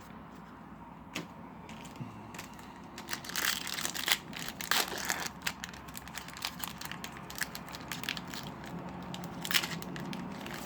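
Yu-Gi-Oh booster pack foil wrappers being crinkled and torn open, with irregular crackles and crunches that come thickest a few seconds in and again near the end.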